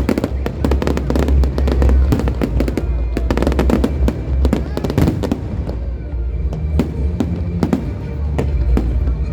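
Fireworks going off in rapid, dense volleys of sharp cracks over a deep rumbling boom, with show music playing alongside; the cracks thin out somewhat after about five seconds.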